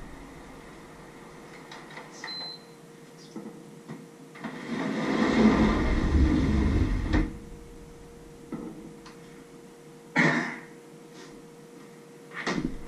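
Off-camera kitchen handling noises: a few knocks and clacks like cupboards or dishes, and a louder rushing, rumbling noise lasting about three seconds a little over four seconds in. A faint steady hum sets in after it.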